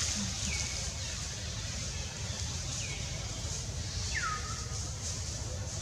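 A bird calling three times, each a short whistle that falls in pitch and levels off, the last one longer and louder, over a steady high hiss.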